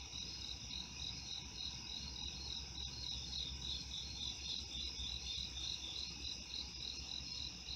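Night-time crickets chirping steadily, a pulsing trill at about four chirps a second, over a low steady rumble.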